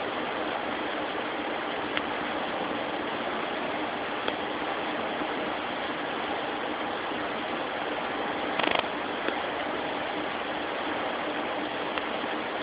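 Steady background hiss with a faint low hum, broken by a few light clicks, the most noticeable a little before nine seconds in.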